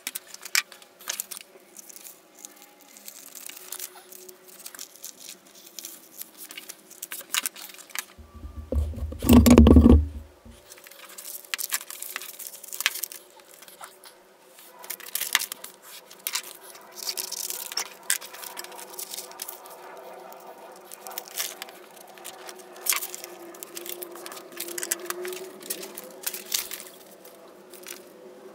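A sheet of paper rustling and being folded, with a ballpoint pen scratching across it and scattered light taps and clicks as paper and a saw are handled on a cutting mat. About a third of the way in comes a louder, deep thump-rumble lasting about two seconds.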